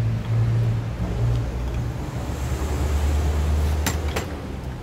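Steady low machine hum that drops to a lower pitch about one and a half seconds in, with two sharp metal clicks about four seconds in as the compressor's clutch pulley is handled.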